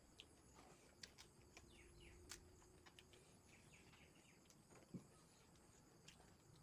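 Near silence, with a few faint sharp clicks and faint short bird chirps in the background.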